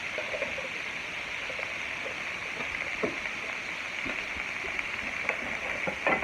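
Chopped onions and bell peppers sautéing in butter in a pan, sizzling steadily, with a few light knocks, more of them near the end.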